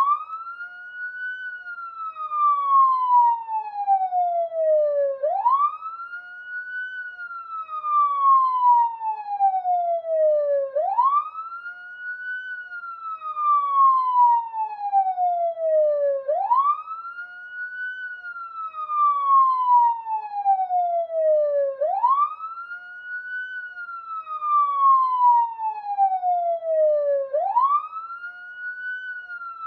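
Police car siren sounding a slow wail: each cycle rises quickly in pitch for about a second, then falls slowly for about four seconds, repeating about every five and a half seconds.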